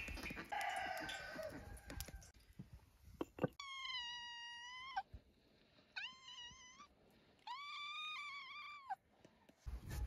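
A cat meows three times, each meow long and drawn out, about a second apart. Before the meows there is a few seconds of clattering and rustling from cooking work.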